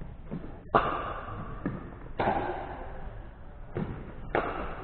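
Pickleball rally: paddles hitting the ball back and forth, about six sharp hits at irregular intervals of roughly half a second to a second and a half, each with a short ringing trail.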